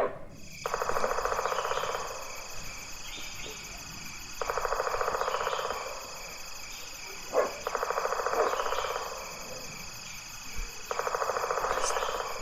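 Woodpecker drumming on wood: four rolls of rapid, even taps, each just over a second long and a few seconds apart.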